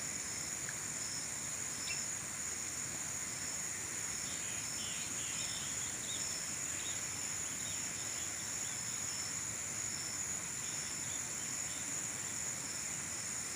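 Insects chirring steadily in high, continuous tones, one of them pulsing evenly, over a steady background hiss.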